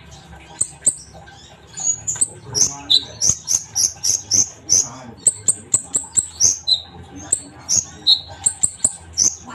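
Olive-backed sunbird (kolibri ninja) singing: a fast run of short, sharp, high-pitched chirps, about three or four a second, starting about two seconds in, with a few lower notes mixed in.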